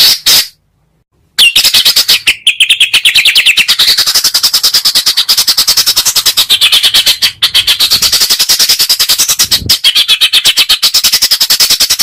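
A bird's fast, harsh rattling call, a dense train of sharp notes about ten a second whose pitch rises and falls, after a brief pause about a second in.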